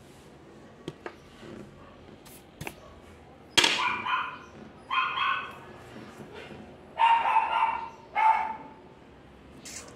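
A dog barking in four short bursts, spread over the second half.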